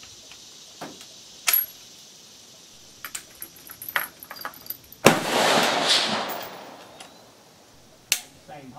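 Metallic clicks and small rattles as a falling-block Sharps rifle in 38-55 is reloaded: the breech worked and a cartridge taken from a plastic ammo box, clicking about three to five seconds in and once more just after eight. About five seconds in comes one loud, sudden bang with a long echoing tail.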